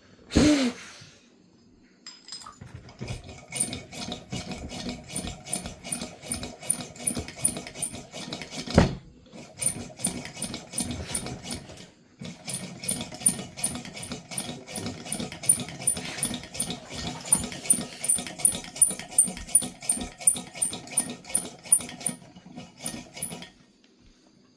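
Hand pump of a Tilley paraffin pressure lamp being worked to build pressure: rhythmic strokes about two a second, each with a sharp click. The strokes stop briefly at a knock about nine seconds in and again around twelve seconds. A short squeak comes just after the start.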